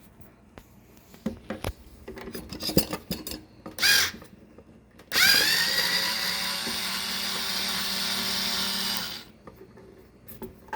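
Cordless power drill-driver unscrewing a drawer knob's screw: a short whir about four seconds in, then the motor spins up and runs steadily for about four seconds before stopping. Light clicks and handling noises come before it.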